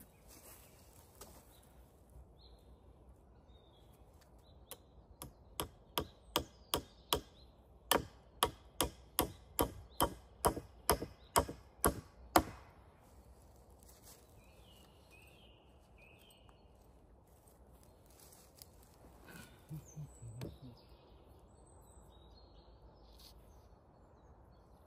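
Wood being chopped by hand: a quick run of about twenty sharp strikes, roughly three a second, starting about five seconds in and stopping just before the halfway point, the last strike the loudest. A few soft thuds follow later.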